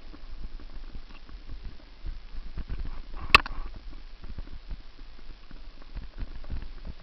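Action camera jolting fast down a rough dirt trail: a steady run of irregular knocks and rattles, with one sharp loud crack about halfway through.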